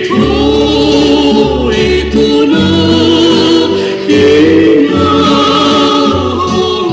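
Batak folk song played from a cassette tape: a vocal group singing in harmony, holding long notes with vibrato over a bass accompaniment.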